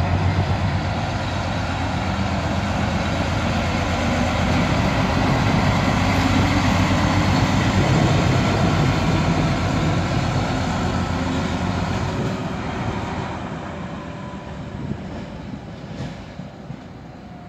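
ČKD class 740 diesel shunting locomotive running past with a steady, fast diesel engine beat. It grows loudest as it comes close, then fades over the last few seconds as it pulls away.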